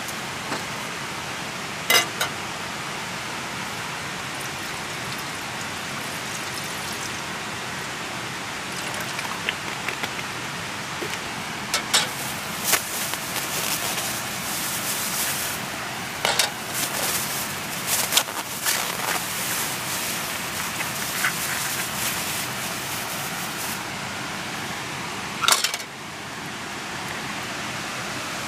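Scattered sharp clinks and knocks of a camping pot being set on the wire grill of a small charcoal brazier, over a steady rushing hiss.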